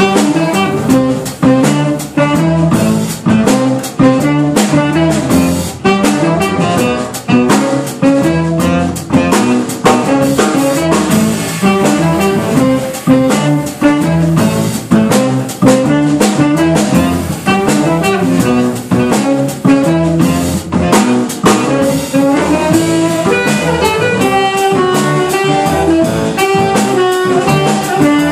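Live small-group jazz: an archtop electric guitar soloing over upright bass and a drum kit keeping a steady swing beat, with saxophone also heard.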